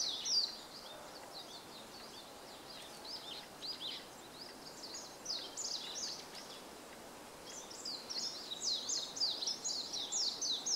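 Warbling white-eye (Japanese white-eye) singing a rapid, high-pitched, twittering song of quick falling notes. It is softer for several seconds in the middle and becomes loud and dense again in the last few seconds.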